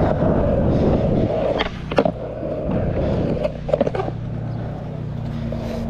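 Skateboard wheels rolling over rough asphalt with a steady rumble, with a few sharp clacks about two and four seconds in.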